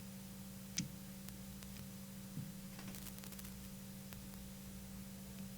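Steady electrical hum at a low level, with one sharp click a little under a second in and a softer tick a little after two seconds.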